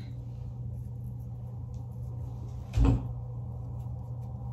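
A single dull thump about three seconds in, over a steady low hum.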